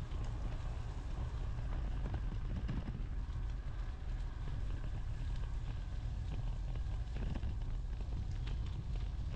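Steady low rumble of wind and rolling noise on a camera riding along on an e-bike, with scattered small clicks and rattles.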